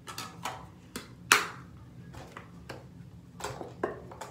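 Makeup items and a makeup case being handled on a counter: a string of small clicks and clatters, the sharpest just over a second in.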